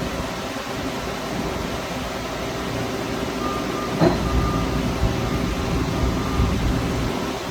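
Steady hum and whir of powered-up industrial machinery, with a sharp knock about four seconds in and a few softer bumps after it.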